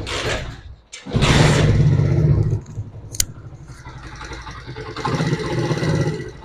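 Freshly rebuilt Honda CD70 single-cylinder four-stroke engine starting: a first brief burst, then it catches about a second in and revs loudly before dropping to a steady idle, with one sharp click and a second light rev near the end. After the rebuild it runs quietly, without the earlier knocking, and the tappets are set slightly loose.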